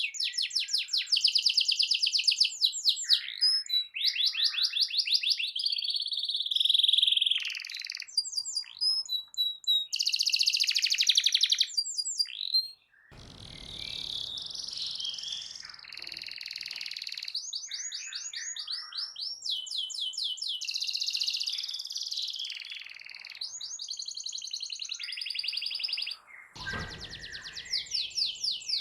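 Domestic canary singing a long, continuous song of rapid trills and fast repeated notes. A short low rumble comes in near the end.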